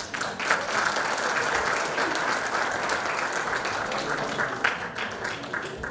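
Audience applauding, a dense round of clapping that thins out near the end.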